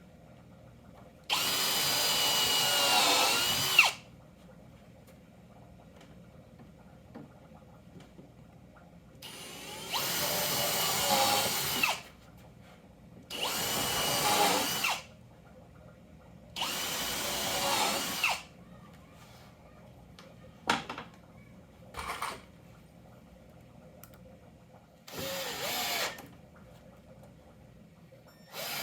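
Power drill driving screws into wood in five runs of one to three seconds each, with its whine dipping in pitch as each screw seats. There are a few short blips of the trigger between runs.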